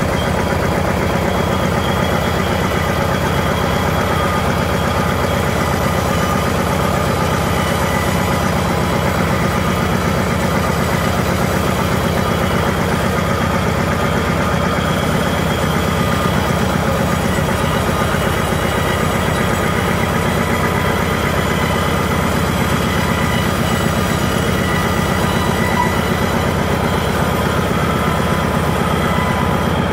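An engine running steadily with a fast, even beat, the machinery of the old frame-saw demonstration.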